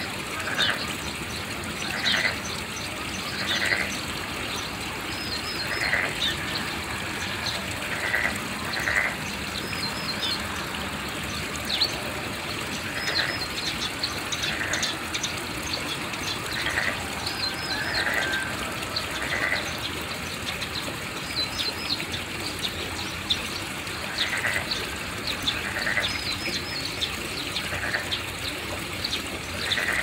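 Wild animals calling at a pond: short calls repeat every second or two, with thin higher chirps, some in quick runs of three, in between. Under them runs a steady rush like running water.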